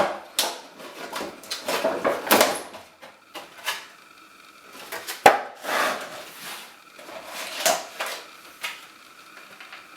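Gaming-mouse retail packaging being opened and handled: irregular rustles, scrapes and knocks of cardboard and plastic, with a sharp click about five seconds in.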